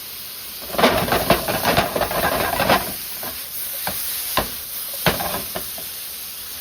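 Sautéed zucchini, mushrooms and garlic sizzling in a hot pan. The sizzle flares up loudly for about two seconds as marinara goes in, then a few separate crackles and pops follow.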